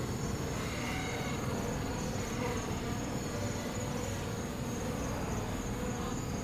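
Steady buzzing of a crowd of Western honeybees (Apis mellifera) clustered in a defensive ball around a hornet at their hive entrance.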